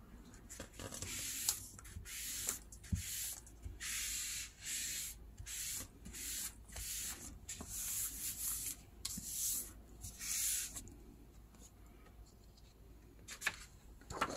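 Hands rubbing a sheet of paper pressed onto an inked silicone tray to transfer the ink, a dry swishing in repeated strokes, about one to two a second. The strokes stop about eleven seconds in, and near the end the paper crackles as it is peeled off the tray.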